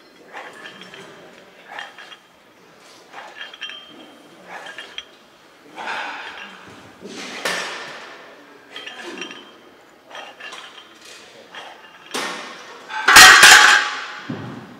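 Iron weight plates clinking on a loaded EZ curl bar during barbell curls: light metallic clinks, roughly one per rep. Near the end there is a loud clatter of metal, the loudest sound.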